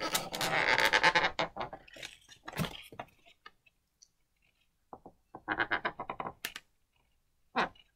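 A marker pen squeaking in quick, croaky stick-slip chatter against a latex balloon as eyes are drawn on it, in two spells: about the first second and a half, and again around five and a half seconds in, with a few single taps between.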